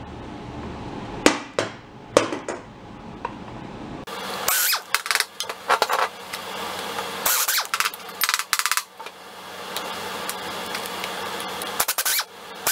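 Pneumatic impact wrench firing in several short bursts on the hub of a rusty chain sprocket, the longest lasting about a second and a half. Sharp clinks of hand tools on metal come between the bursts.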